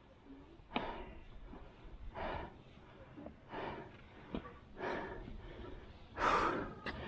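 A hiker breathing hard and rhythmically from the effort of a steep section, one loud breath about every second and a half, the loudest near the end. There are a few sharp clicks in between.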